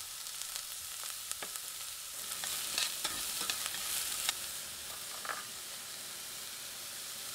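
Diced onion sizzling in olive oil in a stainless steel saucepan, a steady hiss broken by a few sharp clicks and taps of a spoon against the pan.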